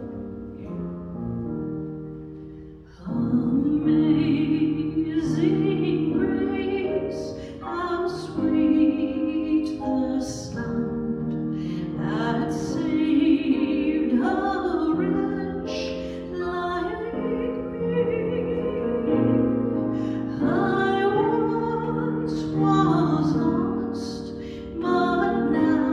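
Piano playing alone at first, then a solo voice comes in about three seconds in and sings with vibrato over the piano accompaniment.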